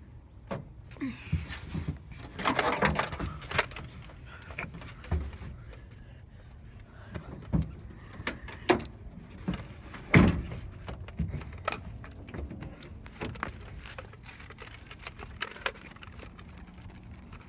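Irregular knocks and clatters, with a stretch of rustling, from things being handled in a pickup truck's bed close to the microphone; the loudest knock comes about ten seconds in.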